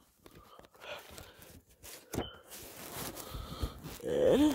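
Faint rustling and scattered clicks, then a short vocal sound from a person's voice, rising in pitch, near the end.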